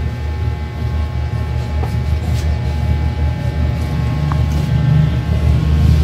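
Juki industrial sewing machine running with a steady low hum and a few thin whining tones.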